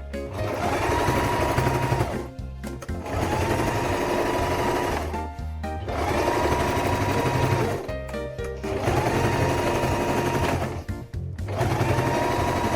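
Domestic electric sewing machine stitching in short runs of about two seconds, its motor whine rising to a steady speed each time, then stopping briefly between runs, as a tear in trouser fabric is sewn up. Background music plays underneath.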